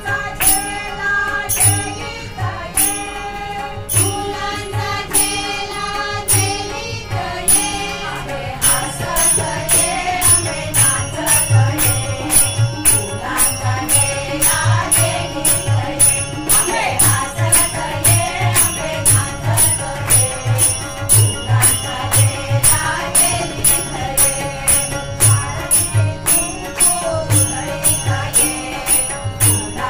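Group devotional singing of a Ganesh bhajan, led over a harmonium's held chords. About eight seconds in, a steady beat comes in: tabla strokes with clapping and small jingling cymbals keeping time.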